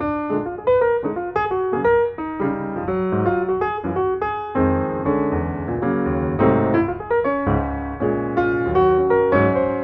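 Background piano music: a continuous run of melody notes over chords.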